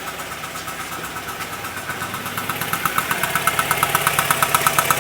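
Chevrolet Lacetti petrol engine running with a rapid, even ticking clatter, growing louder from about two seconds in. The knock comes from a broken spark plug: its insulator has come apart and the centre electrode moves up and down.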